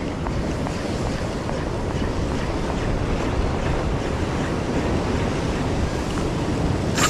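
Ocean swell surging and washing over a rock ledge, with wind buffeting the microphone. A single sharp click comes right at the end.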